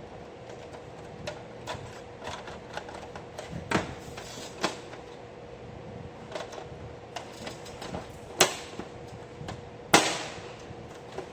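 Plastic panels and parts of an HP M401 laser printer clicking and knocking as they are handled and fitted back, irregular light clicks with two sharper, louder knocks near the end.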